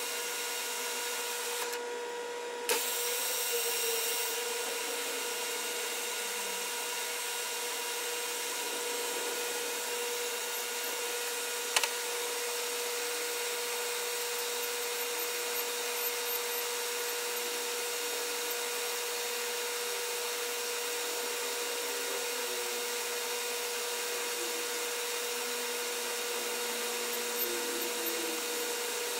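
Metal lathe running steadily with a constant hum while a hand file is worked against the spinning white plastic workpiece. A single sharp click comes about twelve seconds in.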